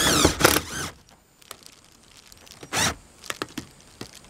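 Cordless drill driving a screw through sheet-metal roof trim; the motor's whine wavers in pitch as the screw bites and stops about a second in. A short second burst near three seconds, then a few light clicks and taps.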